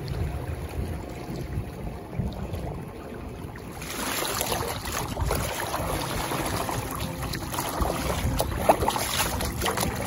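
Water rushing and splashing along the hull of a small heron dinghy as it moves through a light chop. For the first four seconds it is a dull low rumble; about four seconds in it turns into a louder, close splashing of the bow wave, with scattered crackles of spray.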